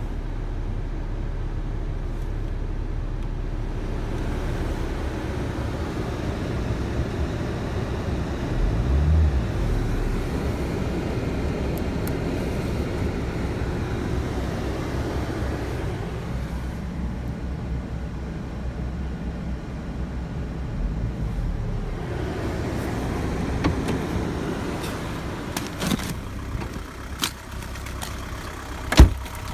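Škoda Octavia mk2's 1.9 TDI PD four-cylinder diesel idling shortly after a cold start at about −7 °C, heard from inside the cabin. A loud thump near the end, a car door shutting.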